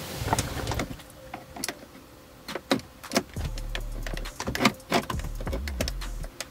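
Metal flathead screwdriver prying at the plastic centre-console trim of a BMW F30, working loose a retaining tab: a run of irregular sharp clicks and scrapes of metal on hard plastic.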